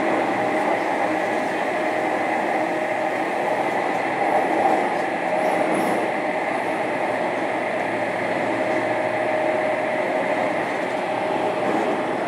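JR Kyushu 305 series electric train running between stations, heard from inside a motor car: a steady rumble of wheels on rail with a few faint steady tones over it.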